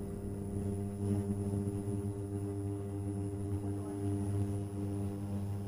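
Steady low hum with a ladder of evenly spaced overtones, unchanging throughout.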